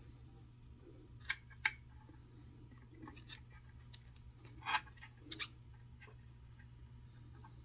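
Faint small clicks and light taps from hands handling macramé thread at a work board: about five short clicks, one pair close together near the middle. A steady low hum runs underneath.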